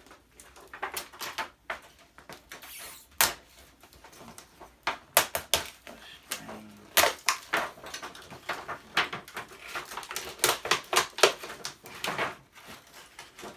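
Brittle, heat-damaged plastic pieces from an old Samsung flatscreen TV cracking and snapping as they are broken up. The sound is an irregular run of sharp cracks, some coming in quick clusters.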